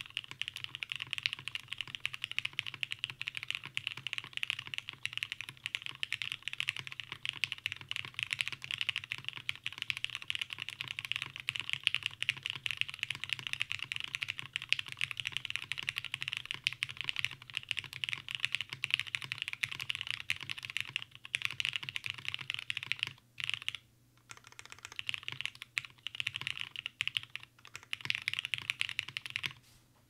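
Fast touch typing, about 138 words a minute, on a 60% mechanical keyboard with lubed Cherry MX Black (retooled) linear switches on an aluminium half-plate and PBT keycaps: a dense, continuous stream of keystrokes. Near the end there are a couple of short breaks, and the typing stops just before the end.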